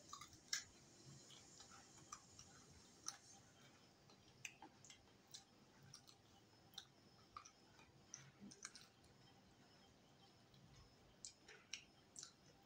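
Faint, irregular clicks and smacks of a mouth chewing rice eaten by hand, about one or two a second.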